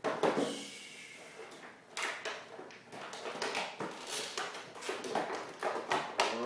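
Packaging being handled during an unboxing: a run of irregular crackles and clicks, like plastic and cardboard being moved and pulled apart.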